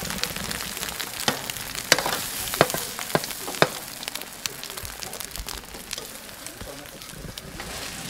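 Beaten eggs with green onion sizzling in hot oil in a black steel pan. A metal skimmer clicks and scrapes against the pan several times in the first few seconds, then less often.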